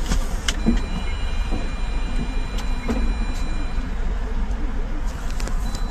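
Car cabin noise: the steady low rumble of engine and road from inside a car moving slowly in traffic, with a few short clicks and knocks scattered through it.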